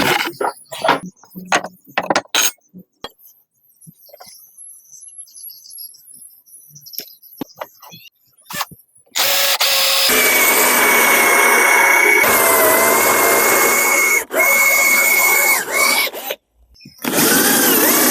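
Scattered knocks and clicks from handling wood and tools, then a power tool runs loudly for about seven seconds with a steady whine. It stops briefly and starts again near the end.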